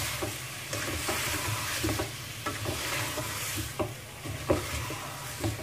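A spoon stirring a chunky chicken and potato mixture in an aluminium pot, with short scrapes and knocks against the pot about twice a second, over a steady sizzle of the food frying.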